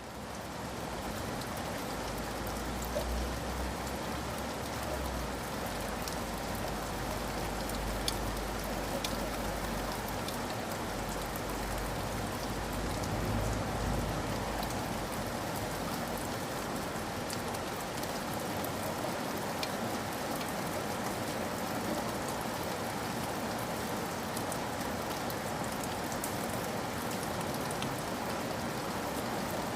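Steady heavy rain falling on a surface, with scattered sharper drop impacts. It rises to full level in the first second. A low rumble sits underneath through about the first half, then fades away.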